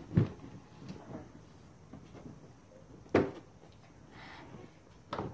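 Plastic door and body of a child's ride-on toy car knocking as a toddler pushes the door open: a few separate knocks, the loudest about three seconds in.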